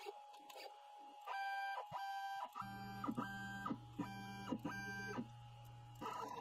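X-Carve CNC router's stepper motors whining through several short moves, each starting and stopping with a quick slide in pitch. A steady low hum comes in about two and a half seconds in.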